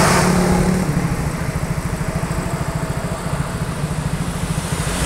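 A vehicle engine running at low revs with a steady, evenly pulsing low throb, while the rush of a passing vehicle fades away in the first second.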